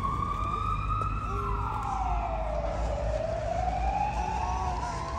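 Emergency-vehicle siren wailing: a single tone that slides slowly up, sinks to a low point about halfway through, and climbs again, over a low rumble.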